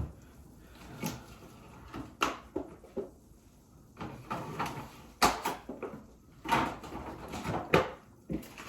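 Irregular knocks and clatter of things being handled in a kitchen, a dozen or so short sharp sounds, the loudest after about five seconds.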